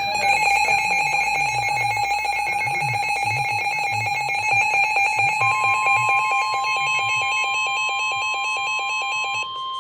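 Emergency Alert System attention signal: a loud, steady, buzzy alarm tone with a fast even pulsing. About halfway through, a second, higher steady tone joins it, and the first tone cuts off near the end.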